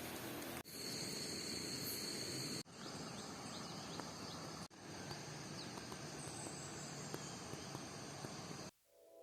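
Night insect chorus: crickets and other insects trilling steadily at high pitches over an even hiss. The sound changes with abrupt cuts every two seconds or so, then stops suddenly near the end.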